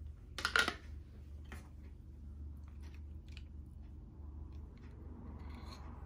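Kitchen handling noises around a plastic jar: a short clatter about half a second in as its screw lid comes off and is set down, then a few faint knocks, and near the end faint scraping as a wooden ladle dips into the jar. A low steady hum runs underneath.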